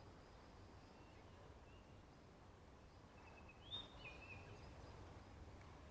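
Near silence, with a few faint, short, high bird chirps a little past halfway.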